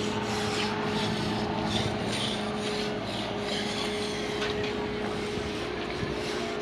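Mason's hand tool scraping and smoothing fresh concrete on a sidewalk in irregular strokes, during the finishing and grooving of the surface. Under it runs a steady low hum.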